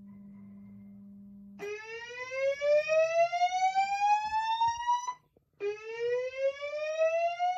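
Notifier digital voice command (DVC) fire alarm system sounding its slow whoop evacuation tone ahead of the fire message: a faint steady hum, then about a second and a half in, a tone that sweeps upward in pitch for about three and a half seconds, a brief break, and a second identical rising sweep.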